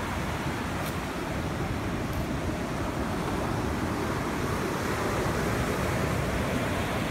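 Steady wind buffeting the microphone, with the wash of surf behind it.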